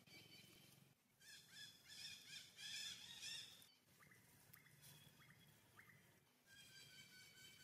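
Faint high-pitched animal calls: a rapid warbling series in the first half, a few short rising squeaks, then a held call near the end.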